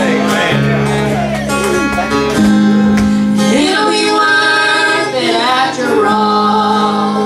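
Gospel song with guitar accompaniment and a steady bass line, women's voices singing held notes over it.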